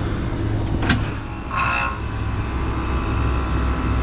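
Refrigeration condensing unit running with a steady low hum while it is being charged with R-448A refrigerant. A sharp click comes about a second in, and a short hiss half a second later.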